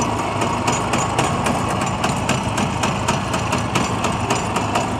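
Small air-cooled single-cylinder engine of a three-wheeled cargo motorcycle idling steadily.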